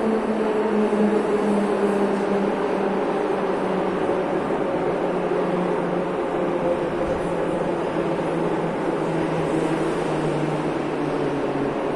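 Metro train running into the station, a loud steady rumble with a motor whine that falls slowly in pitch and dies away near the end as the train comes to a stop.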